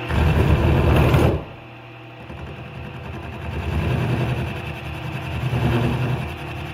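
Milling machine running with an end mill cutting a slot in a metal bar: a loud rough cutting noise for about the first second and a half cuts off suddenly, then the cutting noise builds back up. The machine is vibrating a lot, which the operator puts down to it standing on casters.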